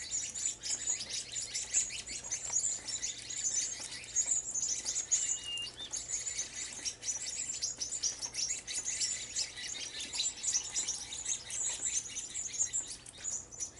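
A flock of white-crowned sparrows keeps up a dense, unbroken chatter of high chips and twitters, with one short whistled note about five seconds in.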